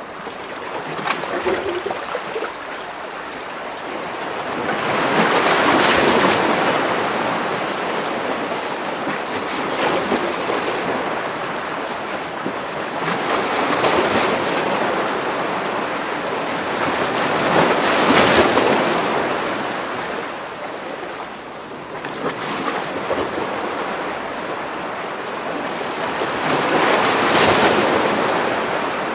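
Sea waves surging and splashing between rocks, close up. The water swells in repeated surges about every four seconds, with sharp slaps and splashes against the rock.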